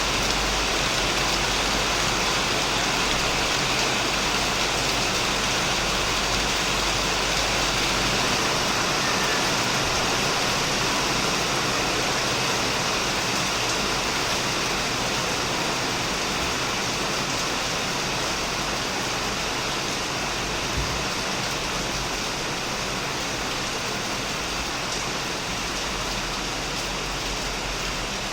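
Steady heavy rain falling on a shed roof and plants, an even hiss with occasional faint drop ticks.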